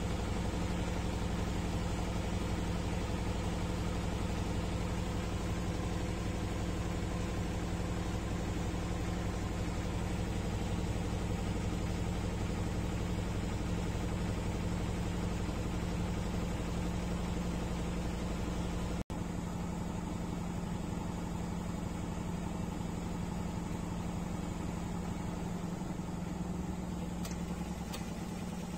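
1994 Bompani BO27027 washer dryer running a wash cycle: a steady mechanical hum from the motor and turning drum. About two-thirds of the way through the sound drops out for an instant.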